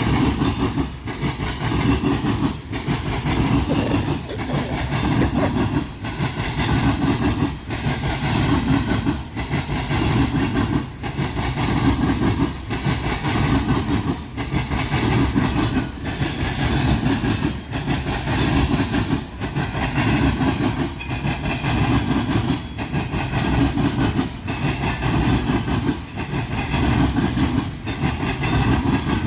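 Long freight train rolling past, its cars' wheels clattering in an even rhythm, about one clack every second and a half to two seconds, over a continuous rumble.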